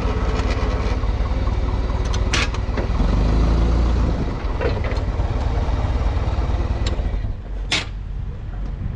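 A vehicle engine running steadily, with a few sharp knocks, dropping away about seven seconds in.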